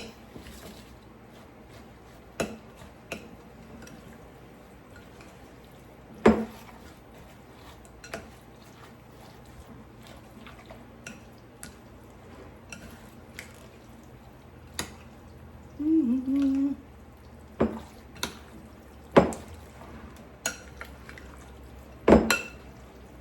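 A spoon stirring a thick, creamy vegetable filling, with scattered clicks and knocks of the spoon against the dish. A few of the knocks are much louder.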